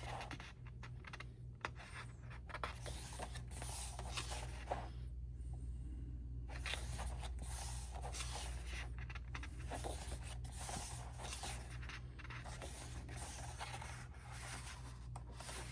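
Glossy pages of a K-pop album photo book being turned and handled: irregular paper rustles, slides and soft flicks, over a steady low hum.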